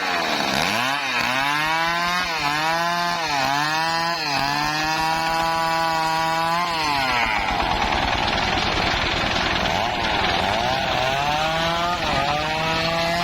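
Two-stroke chainsaw running at high revs through wood, its engine pitch sagging and recovering several times as the chain bites. About seven seconds in the revs drop away, then climb and sag again near the end.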